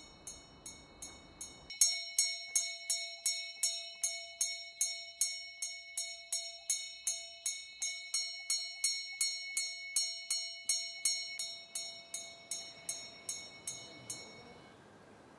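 Small hanging bell on a yoke, rung by its chain in rapid, regular strokes, about three a second. The ringing grows louder about two seconds in and stops shortly before the end.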